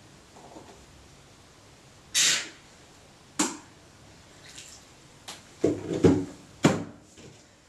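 A short hiss about two seconds in and a sharp click, then a quick run of knocks and clunks about two thirds of the way through as a thermos flask is set down on a cluttered workbench.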